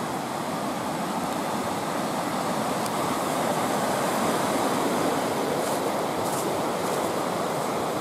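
Rushing mountain river, white water running over rocks, a steady rush that swells slightly in the middle.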